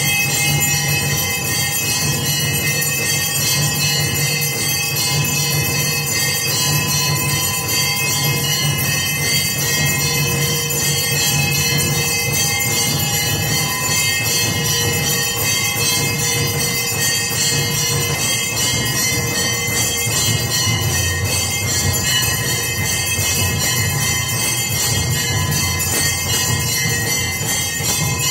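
Temple bells and percussion ringing continuously for an aarti: a dense, steady metallic din with no breaks.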